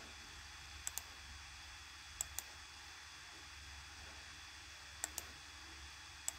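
Computer mouse button clicking about four times, each a quick pair of sharp clicks, over a faint steady low hum.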